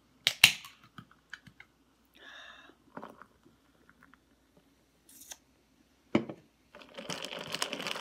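Scattered clicks and knocks of food packaging and containers being handled, then about two seconds of crinkling packaging near the end.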